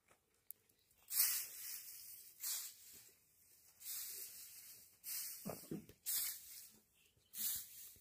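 Long-handled hand rake dragged through dry cut hay, the hay rustling and scraping in short swishes about once a second, six strokes in all, the first the loudest.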